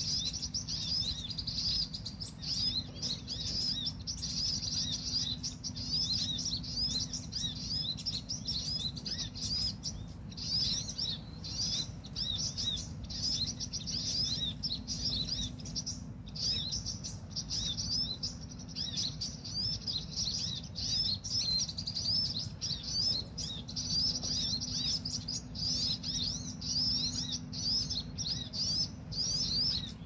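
Small songbirds chirping: a dense, unbroken run of fast, high, repeated twittering notes, typical of a bird-lure call recording for small birds such as prinias and flowerpeckers.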